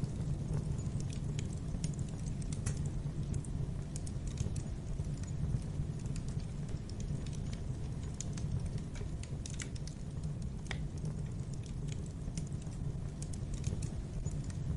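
Fireplace fire crackling: irregular small snaps and pops over a steady low rumble.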